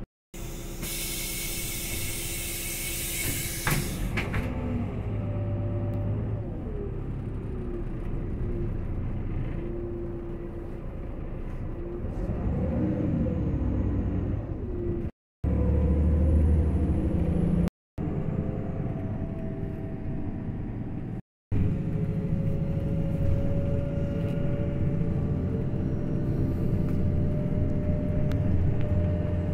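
Irisbus Crossway 12m bus heard from inside the passenger cabin. A loud hiss of compressed air from the bus's air system comes in the first few seconds. Then the diesel engine and drivetrain run as the bus drives, the pitch rising and falling with speed and gears, with a slow rising whine near the end.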